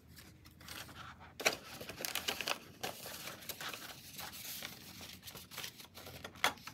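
Clear plastic cash envelope in a ring binder crinkling as it is handled and opened, with paper bills rustling against it, and one sharp click about a second and a half in.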